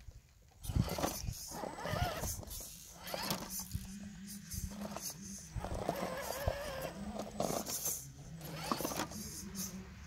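Electric motor and gear drive of an Axial SCX10 RC rock crawler whining in bursts as it is throttled up a rock face, its pitch wavering with the throttle, with pauses between bursts. Sharp clicks and scrapes of the tyres and chassis on stone are heard along with it.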